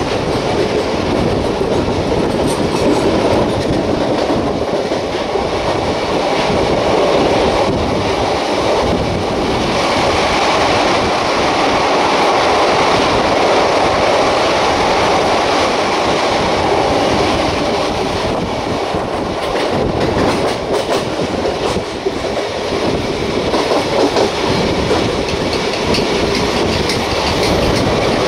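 Express train running at speed, heard from an open coach doorway: a steady rumble of wheels on the rails with clickety-clack over rail joints. The rumble grows a little louder and fuller while the train passes through a rock tunnel, and a few sharper clicks come later on.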